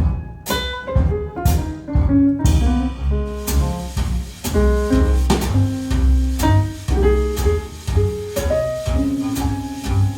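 Jazz recording with double bass, piano and drums played back over a high-end hi-fi system: Wilson Audio loudspeakers driven by Audio Research amplification.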